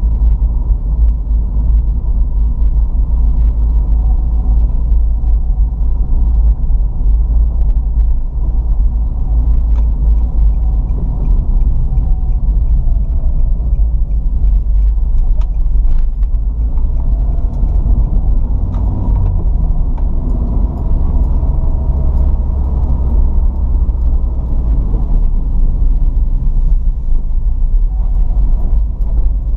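Car being driven, heard from inside the cabin: a steady low rumble of engine and road noise. Faint engine tones rise and fall now and then as the car speeds up and slows.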